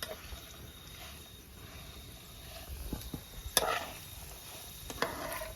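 A cooking utensil stirring food in a pan over the fire, making a few scrapes and knocks against the pan, the loudest about three and a half seconds in, over a faint steady hiss.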